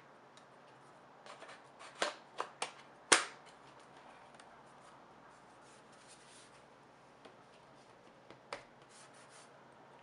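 Clicks and knocks of a MacBook's aluminium bottom cover being fitted onto the case and the laptop being handled, with a cluster of taps in the first few seconds, the loudest a sharp knock about three seconds in, and a couple of lighter knocks later on.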